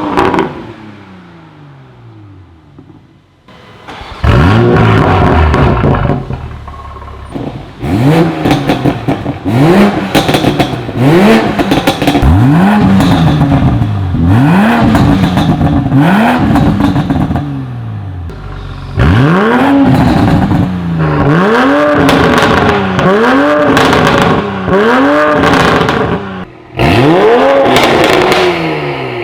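2020 Toyota Supra 3.0T's turbocharged straight-six revved repeatedly through an Armytrix valvetronic exhaust. After a quieter first few seconds come loud, short rev blips, each rising then falling in pitch, about one every second and a half.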